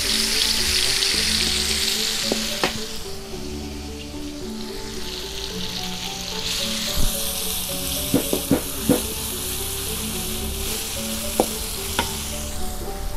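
Spice paste and oil sizzling in a hot steel wok while a metal spatula stirs, with sharp scrapes and knocks of the spatula against the pan, several in quick succession about two-thirds through. The sizzle eases a few seconds in and picks up again around the point where lime leaves are added.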